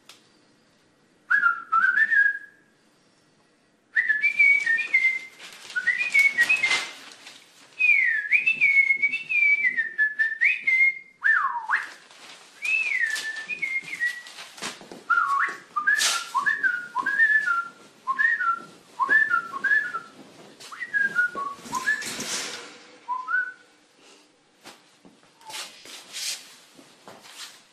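A person whistling bird-like chirps and twittering phrases, imitating a pet bird, in many short quick up-and-down glides; the whistling stops a few seconds before the end. Paper or cloth rustles now and then, loudest just before the whistling stops.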